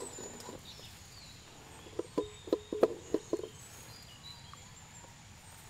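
A quick run of about seven light knocks and clicks about two seconds in, from handling duck eggs at a nest. Behind them runs a steady high insect drone with scattered short bird chirps.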